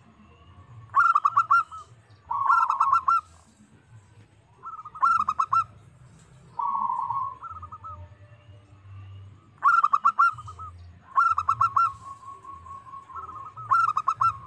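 Zebra dove (perkutut) cooing: about seven short phrases of quick stuttering coo notes, each about a second long, with gaps of one to three seconds between them. It is a challenge song played as a lure to draw other perkutut into answering.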